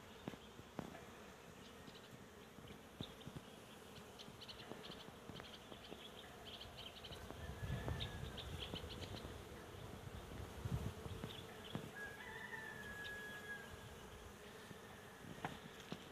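Honeybees buzzing steadily around the hive, with scattered small clicks and a couple of soft low rumbles. A brief high tone sounds a little past the middle.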